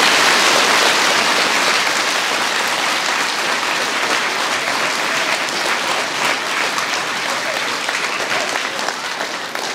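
Audience applauding, many hands clapping at once; the applause is loudest at the start and slowly dies away over the following several seconds.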